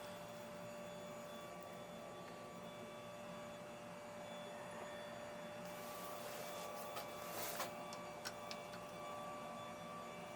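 Myford Super 7 lathe running steadily, its motor and drive giving a steady whine over a low hum, with a few light clicks about seven to eight seconds in.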